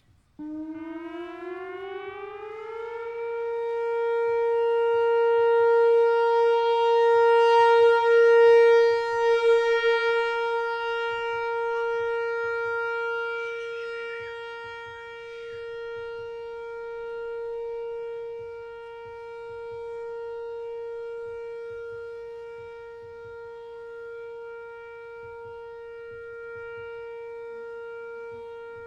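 Whelen WPS-4004 electronic outdoor warning siren sounding the one-minute alert tone of its monthly test. It starts about half a second in, its pitch rises for about two seconds, then it holds one steady tone whose loudness slowly swells and ebbs.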